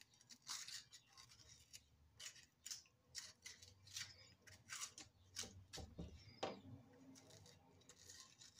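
Serrated knife cutting around and picking out the core of a beefsteak tomato: a series of faint short cutting strokes, about two a second.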